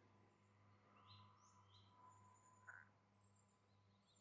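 Near silence, with a few faint, short bird chirps in the distance over a low steady hum.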